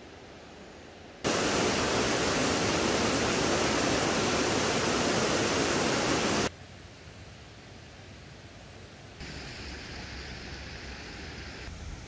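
Mountain stream rushing, a loud steady rush of water that cuts in suddenly about a second in and cuts out about halfway through. Before and after it a quieter rush of water carries on, stepping up again near the end.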